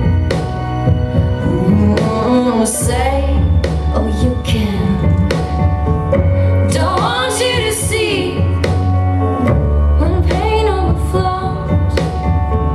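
Recorded pop-dance music with a heavy bass beat and a woman's singing voice.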